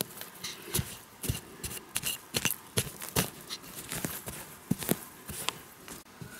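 A small metal blade digging into loose soil: irregular chopping and scraping strokes, a couple a second, some landing with a dull thud.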